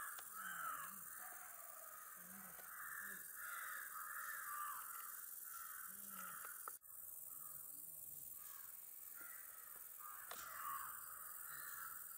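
Repeated harsh bird calls, faint and continuing throughout, with a sudden brief dropout about seven seconds in.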